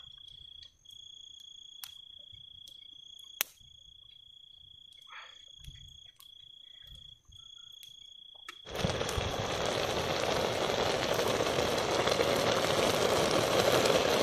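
Cricket trilling steadily on one high pitch with brief breaks, with a couple of sharp clicks. About nine seconds in, a much louder even rushing hiss starts suddenly and drowns the cricket.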